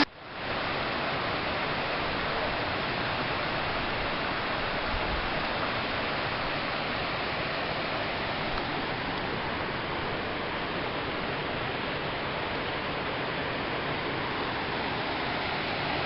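Steady rush of a waterfall cascading over rock slabs into a rocky stream.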